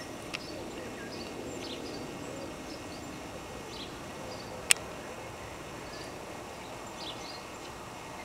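Small birds chirping over a faint, steady rumble from the distant Boeing 747's jet engines on approach. A single sharp click sounds about four and a half seconds in.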